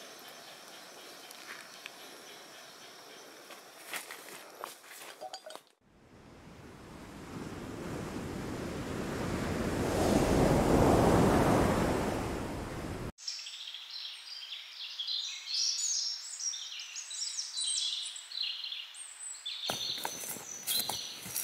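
Outdoor ambience in cut-together pieces: a rushing noise that swells for several seconds and fades, cut off abruptly, then small birds chirping rapidly.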